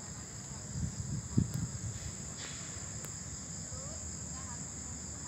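Crickets chirping steadily in a night-time chorus, with a few low thumps around a second and a half in.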